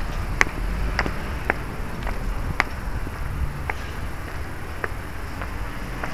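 Footsteps climbing stone stairs: sharp shoe taps on the stone about twice a second, over a steady low rumble.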